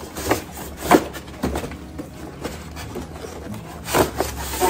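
A cardboard box and its packaging being handled, with a few short knocks and rustles, over background music.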